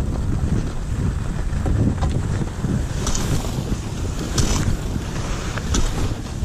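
Wind buffeting a skier's action-camera microphone as he skis downhill, with the skis hissing over packed snow. A few brief scrapes of the ski edges stand out in the second half.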